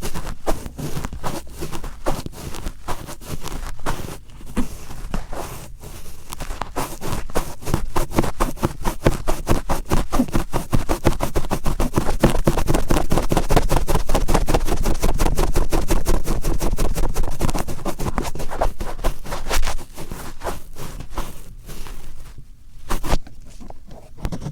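Cotton swab rubbed and twisted firmly in the right ear, giving rapid scratchy, crackling strokes many times a second. The strokes grow denser and louder towards the middle and thin out near the end.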